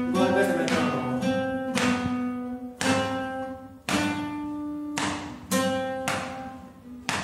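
Steel-string acoustic guitar playing chords, each struck sharply about every second or so and left to ring out.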